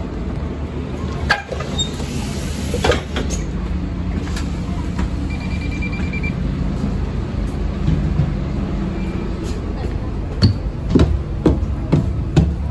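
Scania Omnicity single-deck bus's diesel engine idling steadily, heard close by at its open front door. A couple of knocks come early, a short high pulsing beep sounds midway, and a run of knocks follows near the end.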